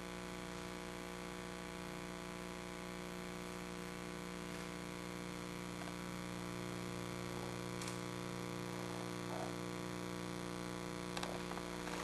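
Steady electrical mains hum with a buzz of many overtones over quiet room tone, with a few faint clicks.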